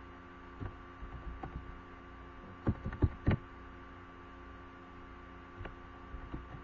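Steady electrical hum with scattered knocks and clicks, three loud ones close together about three seconds in.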